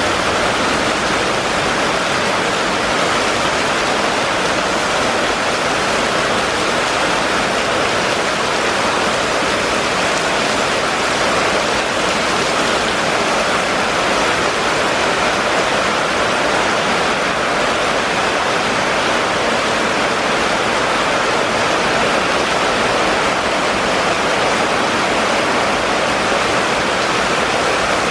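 Heavy rain pouring onto a waterlogged street: a steady, even hiss of downpour.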